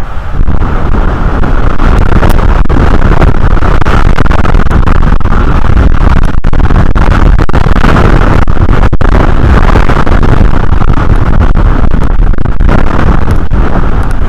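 Strong wind blowing over an outdoor nest camera's microphone: a loud, steady rumble with hiss, close to the top of the recording level.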